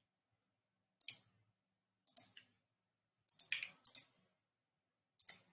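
Computer mouse clicking: a handful of short, sharp clicks about a second apart, some in quick pairs like double-clicks.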